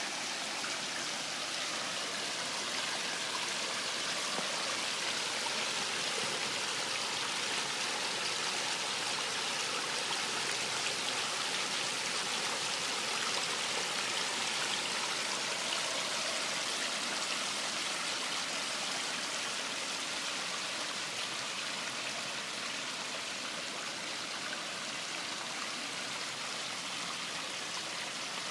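Small pondless waterfall running, a steady, even splashing of falling water.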